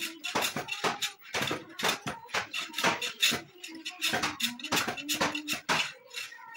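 Metal hand plane shaving the edge of a laminated plywood board in quick repeated strokes, about three a second, each a short scraping hiss of blade on wood.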